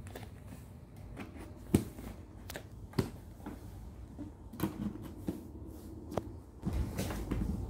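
Scattered light taps and knocks of a baby's hands and knees on the hollow plastic base of a toy activity house as the baby crawls through it, with soft rustling and a louder shuffle near the end.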